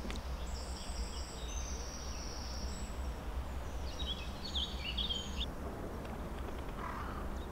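Small birds singing from the riverbank: thin high whistled notes for the first few seconds, then a quick burst of chirping trills around the middle. Under them runs a steady low rumble of wind on the microphone.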